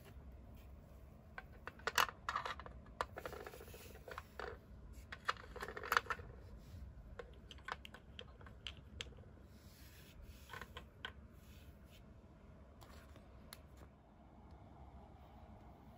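Small hard-plastic toy pieces being handled and set down on a plastic toy playset: scattered light clicks and taps, the loudest about two and six seconds in, thinning out in the second half.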